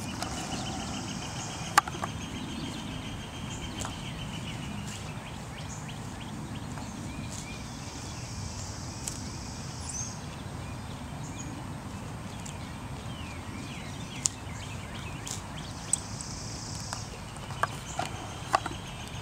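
Pony grazing close up, tearing off grass and dandelions and chewing, with scattered sharp crunching clicks, several near the end.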